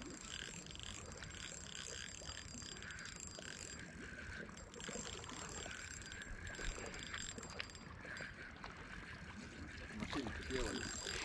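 Spinning reel being cranked steadily on a lure retrieve, its gears giving a faint, even whir.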